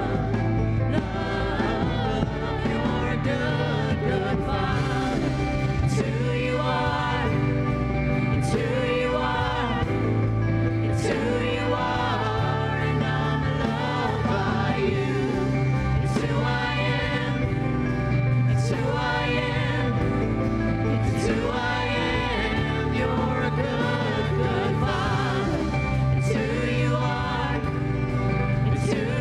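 Live gospel worship music: several singers over a band of drums and guitar, with a steady bass and a cymbal crash about every two and a half seconds.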